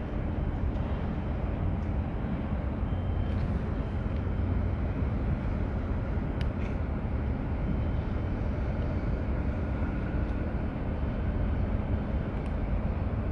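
Steady low rumble of harbour background noise, with a few faint clicks.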